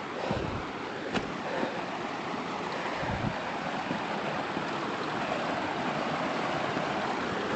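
Waterfall, its falling water rushing steadily, with a couple of faint clicks about a second in.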